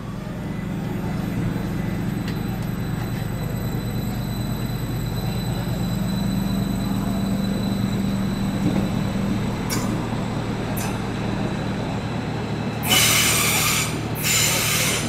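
Electric Stadler GTW multiple unit pulling away from the platform: a steady low electric hum with faint high whines from its traction equipment. About thirteen seconds in, loud harsh high-pitched screeching comes in two stretches as it runs into the curve.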